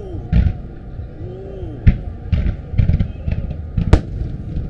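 Fireworks starmine firing: a string of launch thumps and sharp bangs over a steady low rumble, the loudest bang about four seconds in.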